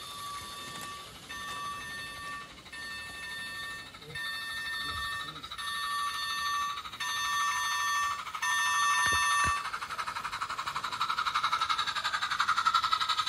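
A garden-railway model locomotive's whistle sounding in a string of short toots, each under a second and about a second apart, growing louder as the train approaches. About ten seconds in the toots stop and give way to a rapid, even beat of the train running past, loudest near the end.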